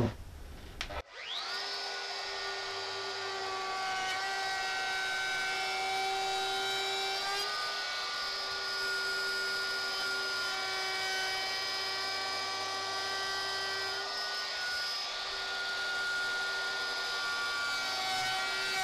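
Handheld DeWalt compact router starting about a second in, its whine rising quickly to full speed. It then runs steadily with a high whine while its edge-profile bit cuts a full-depth pass along the edge of a wooden board, the tone shifting slightly a couple of times as the cut goes on.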